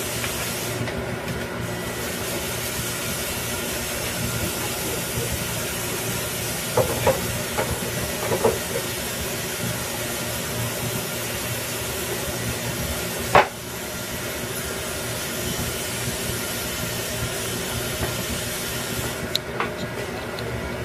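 Steady hiss of background recording noise. A few faint clicks come around the middle, and one sharper click comes about two-thirds of the way in, after which the hiss is a little quieter.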